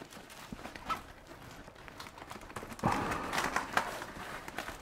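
Softbox diffusion fabric rustling as it is pulled over the rim, with the Velcro edge being pressed closed: light scattered rustles, then a louder crackling rustle from about three seconds in.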